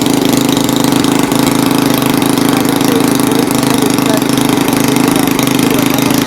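Small engine running steadily at a constant speed, a loud, even hum.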